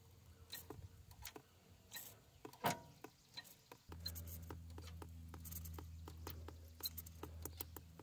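Faint, irregular small ticks and pops as a Deutz D4506's fuel system is hand-primed and air is bled off at the loosened bleed bolt of its Bosch injection pump. Fuel is still coming out with air bubbles. A low steady hum comes in about halfway through.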